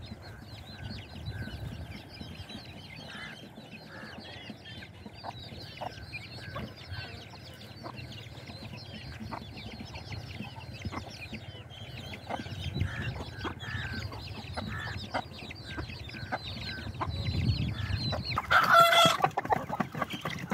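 Chicks peeping continually while a hen clucks softly, with a loud rooster crow of about a second near the end.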